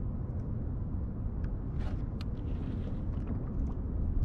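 Steady low wind rumble on the microphone, with scattered faint clicks and ticks.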